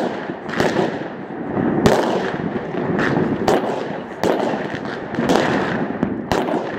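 Fireworks going off all around: irregular sharp bangs and crackles, several close together at times, over a continuous din of many more distant ones.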